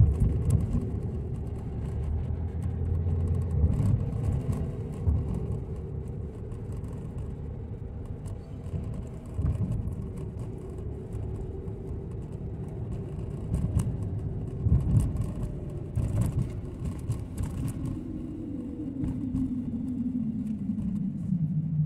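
Car engine and tyre road noise heard from inside the cabin as the car drives along a street. Near the end the engine note falls steadily in pitch as the car slows for a turn.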